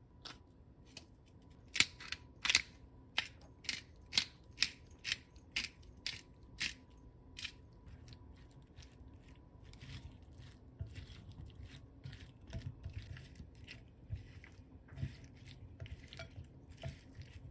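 Pepper mill grinding black pepper: a run of sharp, crunching clicks about two a second for several seconds. Then softer, irregular squishing and scraping as the mayonnaise-dressed salad is stirred in a glass bowl.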